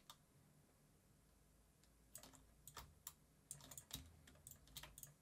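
Near silence for about two seconds, then a run of faint, short computer keyboard clicks.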